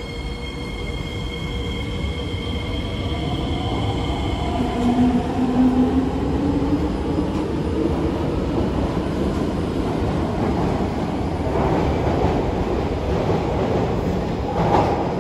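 C151A metro train with Fuji Electric IGBT-VVVF traction equipment, moving under power: the inverter and motor whine rises gently in pitch as it gathers speed, over a steady rumble of wheels on rail. A short clatter comes near the end.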